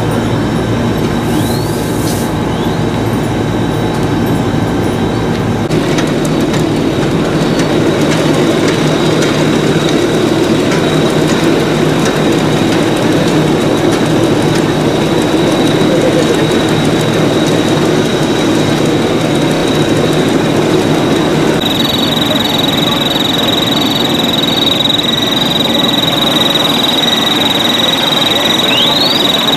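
Fire apparatus engines and pumps running steadily at a structure fire, a loud continuous mechanical din. A steady high whine joins in about two-thirds of the way through.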